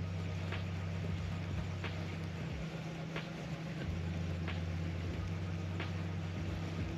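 A small motor humming steadily, with a faint tick about every second and a quarter.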